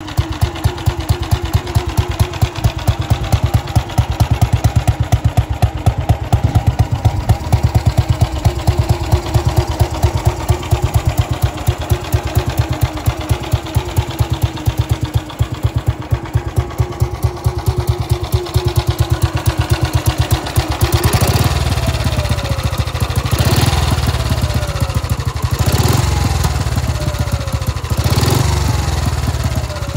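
1939 Velocette MOV's 250 cc single-cylinder overhead-valve engine idling with an even exhaust beat. In the last third the throttle is blipped four times, the revs falling back after each.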